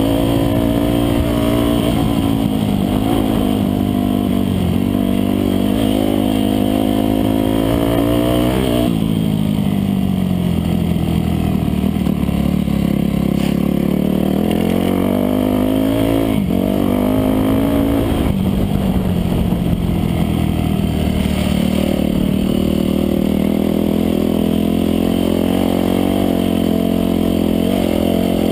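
Dirt bike engine running hard under the rider's throttle, its pitch rising and falling. The pitch drops sharply about nine seconds in, then climbs again, and dips briefly about sixteen seconds in.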